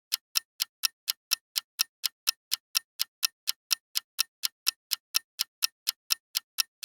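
Clock-style ticking sound effect, sharp even ticks at about four a second, marking the answer countdown of a quiz.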